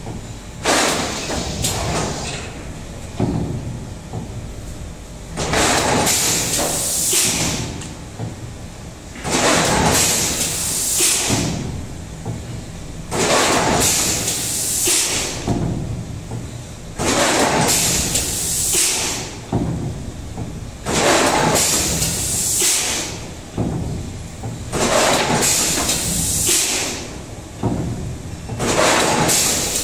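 Plastic thermoforming machine running through its forming and cutting cycle about once every four seconds. Each cycle brings a loud burst of hiss over a steady low mechanical rumble.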